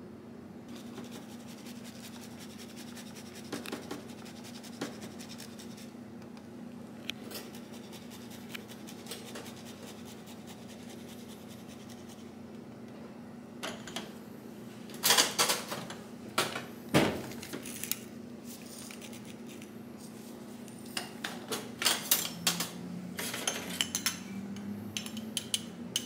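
Metal utensils and dishes clinking and tapping in scattered clicks, with two busier clusters a little past the middle and near the end, over a steady low hum.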